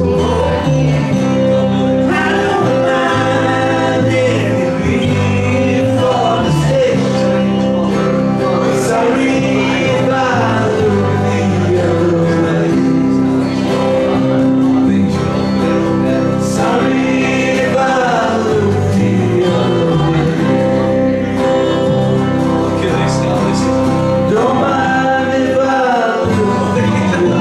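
Small live band playing a song, with a man singing over sustained instrumental notes.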